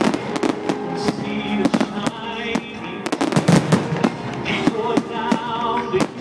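Aerial fireworks going off in quick succession: sharp bangs of shells bursting and crackling. The bangs come thicker from about halfway on.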